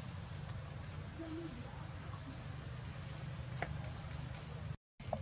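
Faint outdoor ambience: a steady low rumble with a few faint, short high chirps and ticks. It drops out to silence for a moment near the end.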